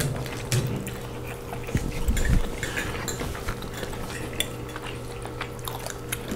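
Metal forks clicking and scraping on ceramic dinner plates as two people pick up food, with a few dull low thumps about two seconds in, over a steady low hum.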